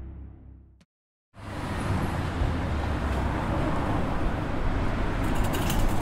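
The tail of a logo sting fades out, then after a brief silence a steady city street traffic noise comes in, with some faint clicking near the end.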